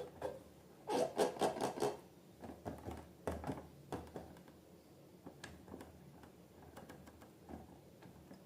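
Slime being squished and worked by hand, giving sticky crackling clicks in two dense bursts in the first half, then sparser single crackles.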